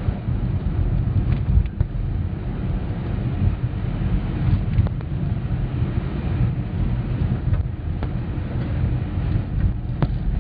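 Steady low rumble of engine and road noise heard from inside a moving car, with a few faint clicks.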